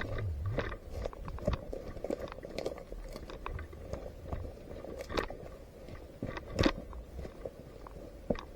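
Footsteps and crunching, rustling movement, broken by a few sharp clicks or snaps; the loudest snap comes about two-thirds of the way in.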